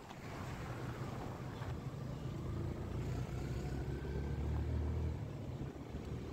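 Motor vehicle engine rumbling, louder from about two seconds in and easing off after about five seconds, with a faint whine above it.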